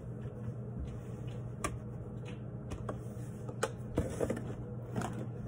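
Light, irregular clicks and taps of plastic spice shakers being handled and shaken over a blender cup, over a steady low hum.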